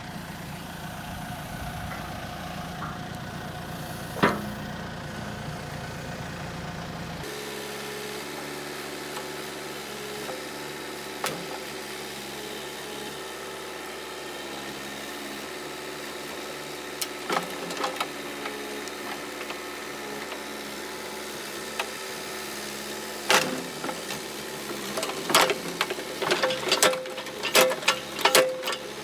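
JCB backhoe's diesel engine running steadily; its sound changes abruptly about seven seconds in. Sharp clicks and knocks come now and then, crowding together near the end.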